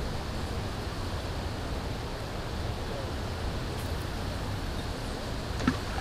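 Steady outdoor background noise with a low rumble and hiss, and one short click near the end.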